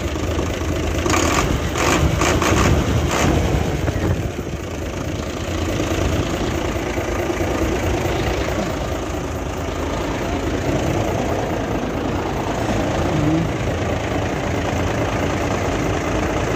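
Nissan FE6 six-cylinder diesel truck engine running just after starting on fresh oil, with a few sharp knocks in the first three seconds before it settles into a steady idle. The engine has blow-by (crankcase back-pressure), which the mechanic judges improved by the oil change but not cured.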